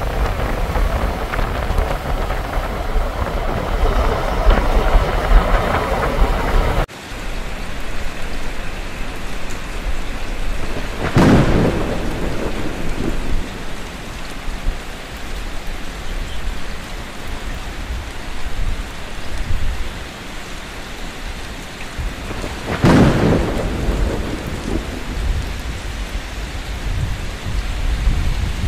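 Heavy rain pouring steadily, with two rolls of thunder, the first about eleven seconds in and the second about twelve seconds later, each a sudden crack trailing off into a low rumble. Before that, the first few seconds hold a rushing wind noise that cuts off abruptly.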